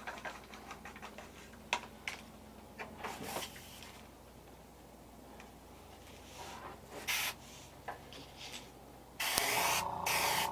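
Iwata HPCS airbrush at about 15 psi spraying a second coat of green paint onto a lure in hissing bursts: two short ones, then a longer, louder one near the end.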